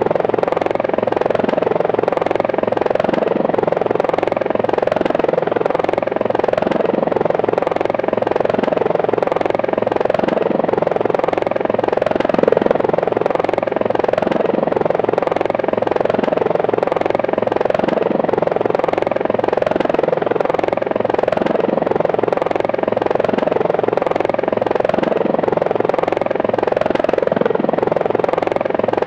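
Helicopter in flight: steady rotor and turbine noise with an even, fast pulsing of the blades.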